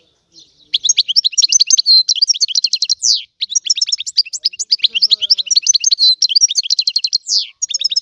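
European goldfinch singing: fast runs of bright, twittering high notes, broken by a short pause about three seconds in, with a drawn-out slurred note before the pause and another near the end.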